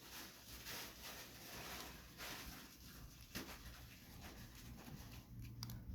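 Faint scratchy rasps and a few light clicks of a small screwdriver driving screws into a Valve Index controller's plastic housing.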